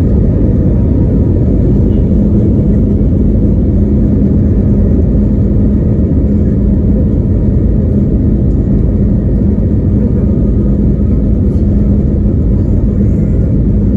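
Steady, loud rumble of an airliner heard from inside the passenger cabin, with a steady hum joining about two seconds in.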